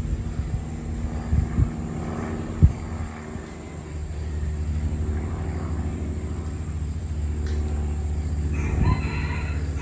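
Wind buffeting the microphone with a low rumble that grows stronger about four seconds in, and a sharp knock near three seconds in. A rooster crows near the end.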